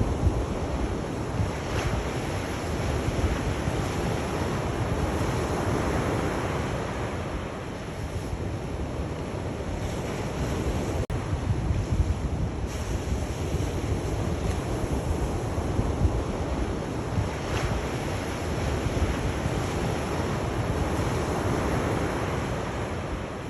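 Sea waves washing ashore, the surf swelling and easing every several seconds over a continuous wash, with wind rumbling on the microphone. A momentary gap in the sound about halfway through.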